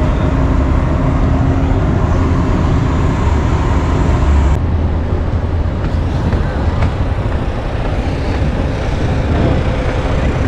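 Steady low rumble with a faint hum, loud and unbroken, its tone changing abruptly about four and a half seconds in.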